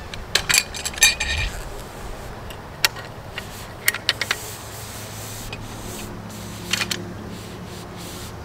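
Scattered metallic clicks and rubbing as the Comet CHA-250B HF antenna is lifted free of the top of the push-up mast. The clicks are loudest in a quick cluster from about half a second to a second and a half in, with a few single ones after.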